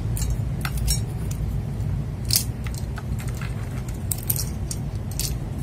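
Plastic PBT keycaps clicking and clattering in scattered, irregular taps as they are handled and fitted onto a mechanical keyboard, over a steady low hum.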